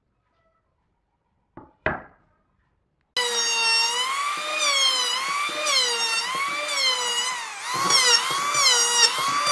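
Electric hand planer shaving a wooden board: a loud motor whine that cuts in suddenly a little after three seconds, its pitch dipping and recovering about once a second as the cutter takes load. Before it, two short knocks about two seconds in.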